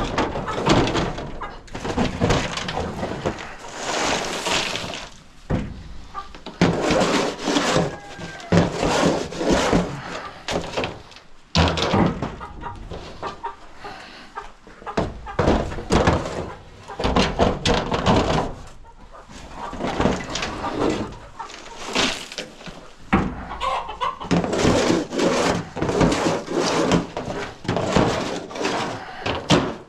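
Chickens clucking while a welded metal coop scraper scrapes and knocks chicken droppings loose, in many short strokes with brief pauses.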